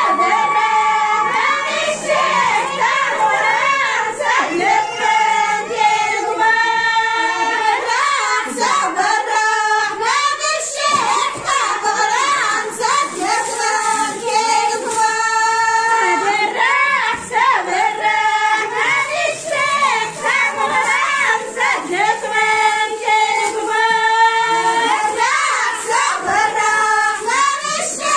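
A group of women singing together in high voices, a Soussi Amazigh wedding song with long held notes over a steady percussive beat.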